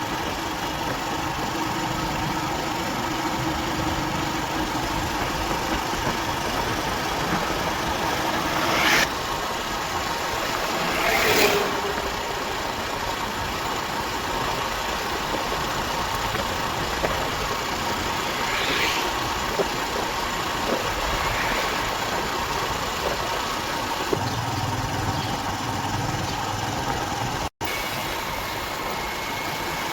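Motorcycle engine running steadily on the move, with road and wind noise and a few brief louder swishes. The sound cuts out for an instant near the end.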